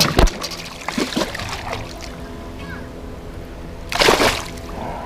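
Water splashing beside a boat, with one loud splash about four seconds in after a knock near the start, over a steady low hum.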